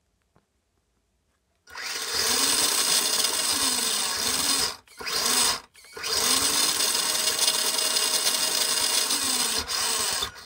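Radio-controlled buggy's electric motor and drivetrain whining as the wheels spin freely on a bench stand, in three throttle bursts with the pitch rising and falling. It starts about two seconds in, with a short break near the middle.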